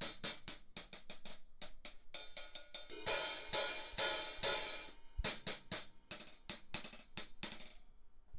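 14-inch Sabian AAX Stage Hats hi-hat cymbals struck in quick succession with a stick: tight, short strikes, with a louder ringing stretch of open strokes roughly three to five seconds in, then short strikes again.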